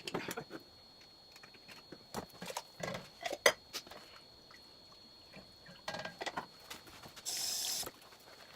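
Kitchen handling sounds: scattered clicks and knocks of utensils and dishes, with one sharp knock about three and a half seconds in and a short hiss near the end.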